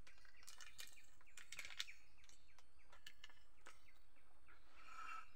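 Faint outdoor ambience with short bird chirps and scattered light clicks and rustles.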